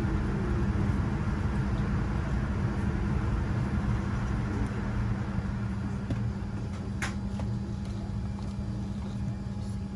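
Steady cabin hum inside a Boeing 787-9 airliner, with a constant low drone and rumble. There is a brief click about seven seconds in.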